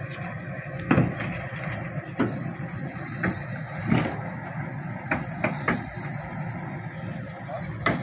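SANY SY135C crawler excavator unloading off a flatbed truck: its diesel engine runs steadily under a string of sharp metallic clanks, about seven, as the steel tracks creep backward over the truck's steel deck and ramps. The loudest clank comes about a second in, and another near the end.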